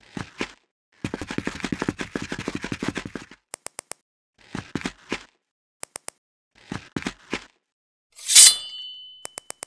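Added sound effects for a stop-motion animation: short knocks and sharp clicks, a rapid rattle lasting about two seconds near the start, and, about eight seconds in, a loud hit that leaves a ringing tone.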